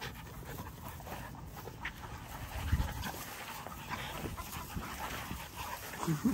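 XL American Bully puppies play-fighting on grass, scuffling, with a dull thump about three seconds in and a short rising whine near the end.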